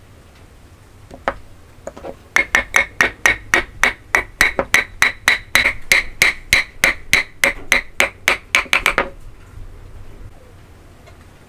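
Hammer tapping a hand-cut wooden joint together: a single tap about a second in, then a quick, even run of about five ringing strikes a second that stops about nine seconds in, as the tenon seats in its socket.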